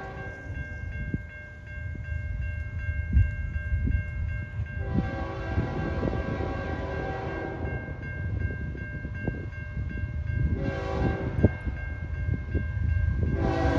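Horn of an approaching CN freight locomotive sounding the grade-crossing signal: a long blast, then a short one, then another long blast beginning near the end. This plays over the steady ringing of the crossing bells and a low rumble of wind on the microphone.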